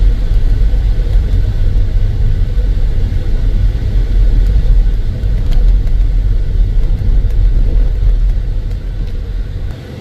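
Car driving on a dirt road, heard from inside the cabin: a steady low rumble of tyres and running gear, which drops off suddenly near the end.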